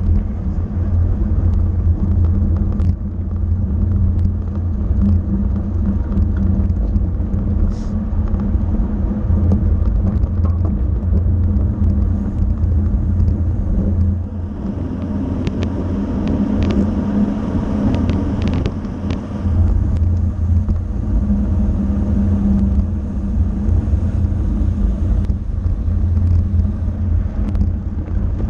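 Steady low rumble of wind and road noise on a camera riding with a bicycle at racing speed. About halfway through, a few seconds of added hiss with several sharp clicks.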